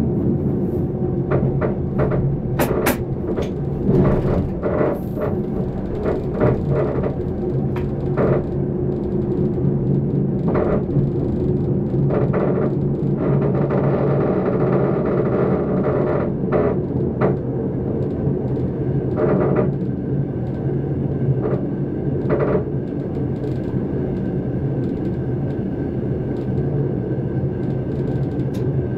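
Electric train running along the line, heard from inside the driver's cab: a steady low hum from the motors and running gear, with irregular clicks and knocks from the wheels on the track. A faint high whine comes in from about two-thirds of the way through.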